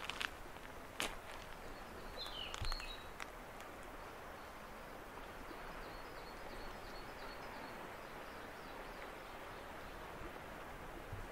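Small birds calling: a short high call about two seconds in, then a run of quick high chirps a few seconds later. Under them is a steady rushing outdoor background, with a couple of sharp crunches like footsteps in the first second.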